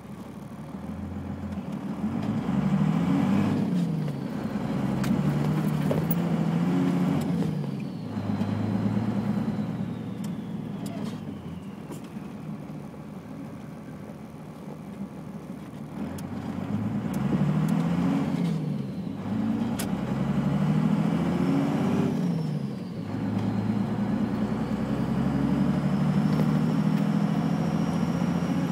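1991 Dodge Cummins 5.9 L inline-six turbo diesel pulling through the gears of a manual gearbox: the engine note climbs in repeated pulls with short breaks at each shift. Over it, the HX35 turbocharger's thin high whistle rises and falls with boost.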